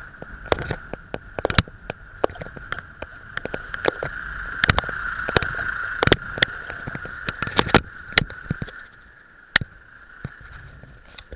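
Road noise picked up by a camera on a moving bicycle in traffic: a rushing rumble and a steady whine, broken by many sharp knocks and rattles as the bike jolts over the uneven asphalt. The rumble drops away about nine seconds in.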